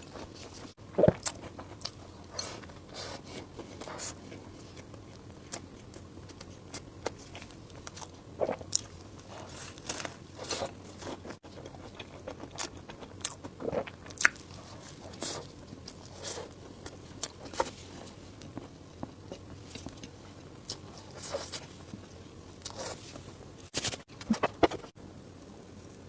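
Close-miked eating: irregular bites and chewing, with short crunchy clicks and wet smacks, the loudest about a second in.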